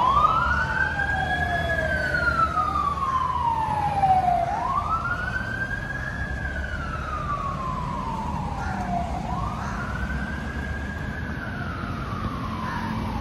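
Fire engine sirens in a slow wail: each rises quickly, then falls slowly, repeating about every four and a half seconds, three times. In the first two seconds a second siren overlaps, out of step with the first. The sirens grow a little fainter as the fire engines pull away, over a low rumble of road traffic.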